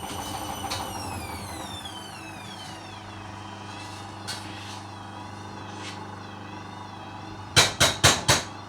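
Hoover Dynamic washing machine in an unbalanced, sudslocked spin: the motor's high whine falls in pitch over the first few seconds as the drum slows, over a steady hum. Near the end come four loud knocks in quick succession.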